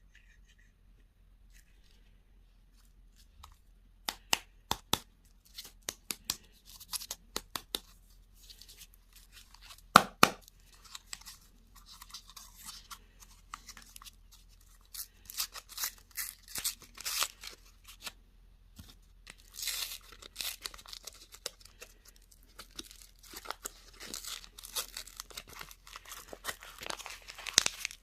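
Candy packaging being torn open and crinkled: irregular runs of sharp clicks and crackles starting about four seconds in, with the loudest snap about ten seconds in.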